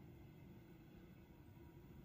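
Near silence: a faint, steady low background rumble.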